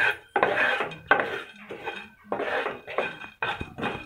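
Wooden spatula stirring roasting chana dal and urad dal around a nonstick kadai: about six short scraping strokes, roughly one every half second.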